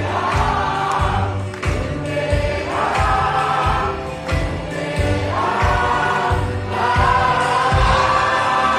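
A group of voices singing a song together over a band, with a steady low beat about twice a second and the sung phrases swelling every couple of seconds.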